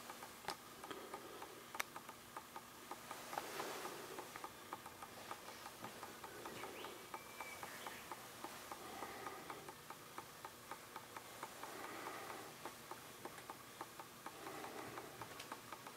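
Faint, quick, regular ticking, about three ticks a second, over low room tone.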